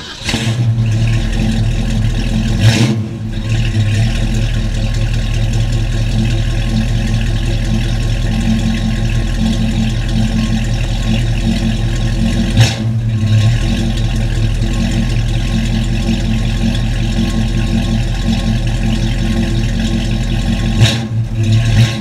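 Rebuilt 289 cubic-inch V8 of a 1967 Ford Mustang, with an upgraded four-barrel carburettor and dual exhaust, running steadily at idle just after a cold start on the first crank. The running sound breaks briefly a few times, about 3, 13 and 21 seconds in.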